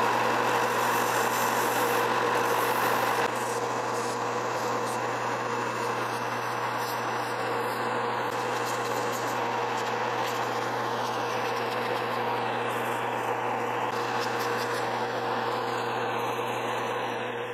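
Benchtop belt sander running with a steady motor hum while a small wooden lure blank is pressed and rubbed against the moving abrasive belt to round its corners. The sound drops slightly in level about three seconds in and then holds steady.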